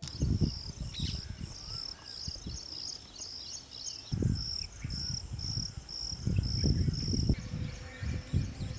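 Dawn countryside ambience: an insect chirping, a high note at one pitch repeated evenly about two to three times a second, which stops about seven seconds in, over an uneven low rumble.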